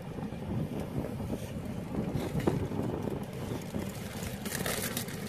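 Steady low rumble inside a car cabin, with faint mouth sounds of chewing; near the end a paper burger wrapper crinkles.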